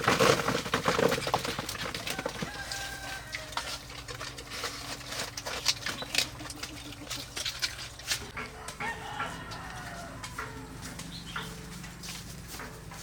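Chickens clucking and calling, with a longer drawn-out call about eight seconds in. Scattered clicks and knocks run throughout, loudest in a burst at the very start.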